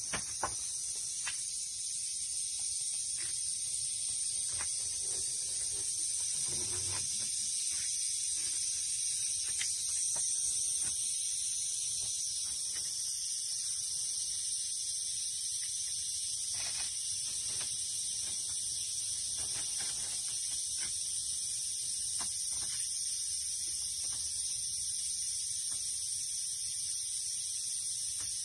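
A steady, high-pitched chorus of insects shrilling, with a caulking gun's trigger clicking sharply every few seconds as it is squeezed.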